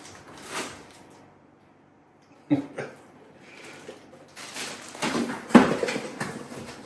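Handling sounds while something is unpacked: a sharp knock about two and a half seconds in, then rustling and knocks, loudest just past the middle.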